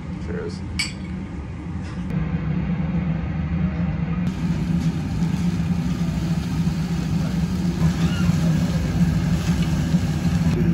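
Two glasses clink once in a toast about a second in. Then thin slices of wagyu sizzle on a yakiniku tabletop grill, over a steady low hum.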